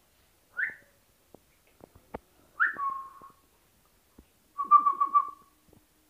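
Alexandrine parakeets whistling: a short rising call, then a call that slides down in pitch and holds briefly, then, loudest, a quick run of about four notes near the end.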